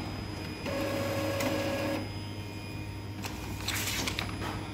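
Epson L3210 inkjet printer printing a page: a steady motor whine for about a second, then a series of clicks and rustling in the second half.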